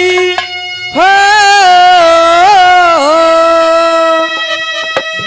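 Live Haryanvi ragni folk music: a single long melodic note starts about a second in and is held with small wavers, dipping in pitch about three seconds in, over a steady drone accompaniment.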